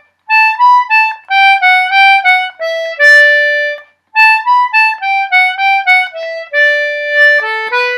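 C/G Anglo concertina playing a lively reel phrase twice, each time running down a little scale to end on a long held D.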